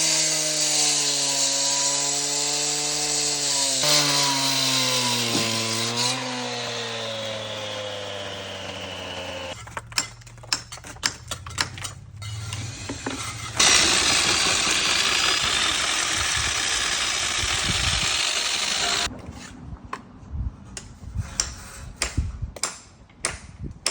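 Power tools running on a house construction site: a motorised tool whose pitch wavers and slowly drops, then a run of sharp knocks, then a loud steady stretch of cutting or drilling noise, followed by scattered knocks and taps.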